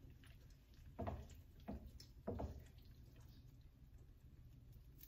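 Three short, soft wet plops about a second apart as saucy bucatini is dropped from metal tongs into a bowl.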